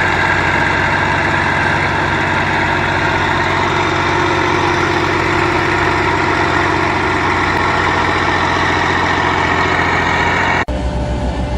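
Large engine running steadily, likely a heavy diesel machine at idle or light load. Near the end it cuts suddenly to a different engine sound with a fast low pulsing.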